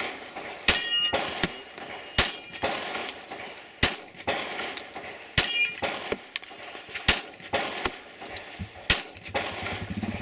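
Gunshots on a shooting range, about seven sharp reports spaced a second or two apart. Several are followed by the ringing clang of a struck steel target. A low buzzing hum starts near the end.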